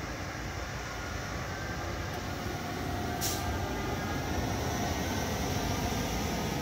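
FS class E.402A electric locomotive and its Nightjet coaches rolling slowly past: a steady low rumble that grows slightly louder, with a short sharp click about three seconds in.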